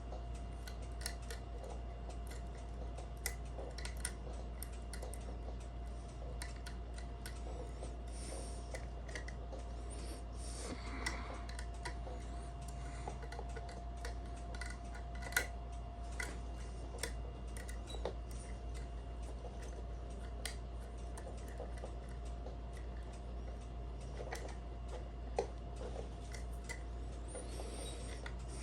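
Irregular small metallic clicks and scrapes of homemade lever picks working the levers inside a 5-lever mortise night latch, with a few sharper clicks, over a steady low hum. The lock is still being picked.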